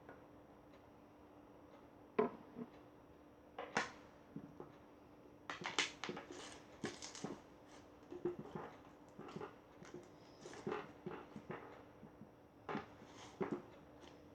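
Slime being pressed and squeezed by fingers: irregular small wet clicks and pops of trapped air, starting about two seconds in and coming thickest in the middle, over a faint steady hum.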